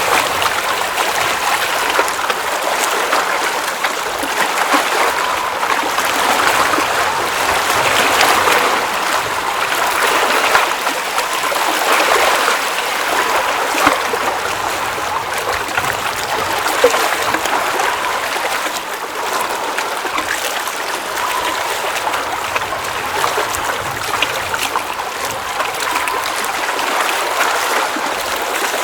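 Water at the edge of a glacial mountain lake, splashing steadily, with many small irregular splashes and drips.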